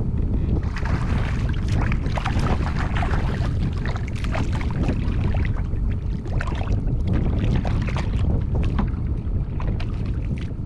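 Wind buffeting the microphone in a steady low rumble, with water slapping and splashing against a kayak hull in many short irregular knocks.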